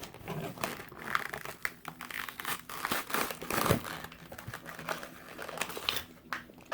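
Crinkling and crackling of plastic blister packaging as a diecast toy car is handled, with many short irregular crackles.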